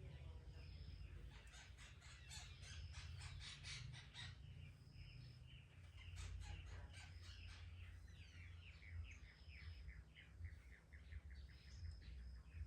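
Faint birdsong: birds chirping in quick runs of short falling notes, with brief high whistles mixed in, over a steady low hum.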